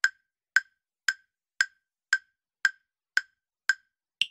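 Quiz countdown timer sound effect: short ticks at a steady pace of about two a second, with silence between them. Near the end, as the count reaches zero, a last tick comes that is higher in pitch than the others.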